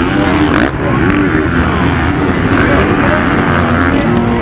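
Several motocross bike engines revving hard and passing, their pitch rising and falling again and again as the riders work the throttle and shift.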